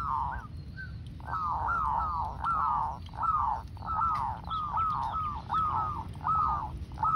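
Zebra doves (perkutut) cooing: a long run of quick, arched notes, about three a second, with brief breaks between groups.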